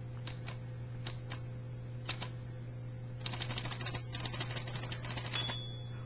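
Manual portable typewriter keys striking: a few single keystrokes, then a quick run of rapid keystrokes for about two seconds, ending in a louder strike and a brief high ring.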